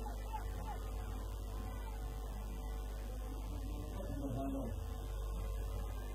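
Steady low electrical hum, with faint music mixed in.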